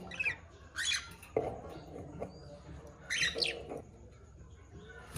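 Budgerigars chirping: a few short calls near the start and about a second in, then a cluster of several around three seconds in, with quieter gaps between.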